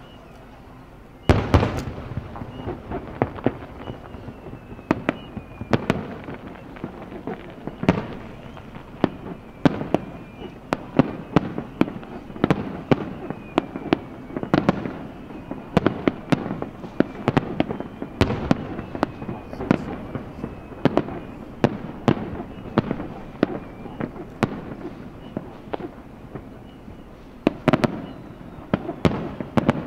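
Fireworks display: a dense, irregular run of shell bursts and booms that starts about a second in, some in quick clusters.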